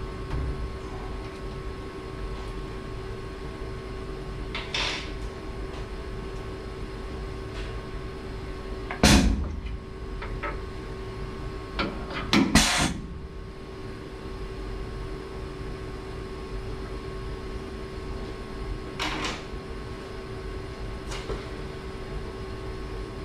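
Tool change on a Tormach 1100M CNC mill's power drawbar. The drawbar fires loudly once about nine seconds in, releasing the old tool. A few seconds later a quick double burst clamps the new tool in the spindle. A steady machine hum runs underneath, with a few lighter knocks of tooling being handled.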